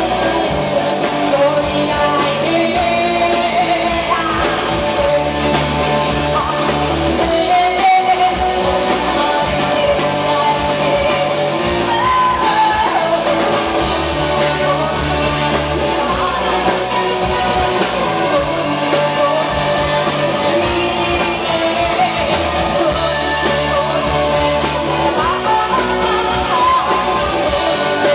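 Live rock band playing a song: guitars and band backing under a sung vocal line, loud and continuous.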